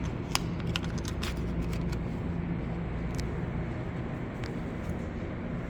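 Steady low hum of an underground station passage, with a few sharp clicks in the first second and a half and two more later on.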